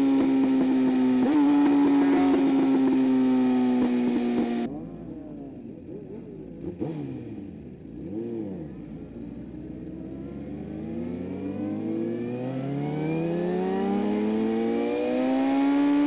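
Yamaha FZ1 sport bike's inline-four engine heard while riding: it runs loud and steady at high revs with the pitch slowly sinking. About four and a half seconds in, the sound suddenly turns duller and quieter and the revs fall. Over the last several seconds it climbs through the revs in one long rising pull as the bike accelerates, then levels off near the end.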